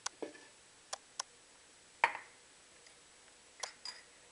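Metal spoon clicking against a ceramic sugar bowl and a plastic blender jar while sugar is spooned in: about six sharp separate clicks, the loudest about two seconds in with a short ring.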